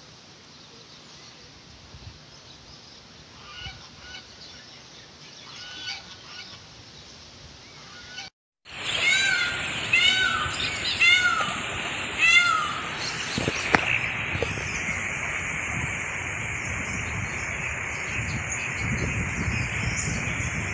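Geese honking: a few faint calls, then, after a brief dropout, a louder run of about five honks, followed by steady wind noise on the microphone.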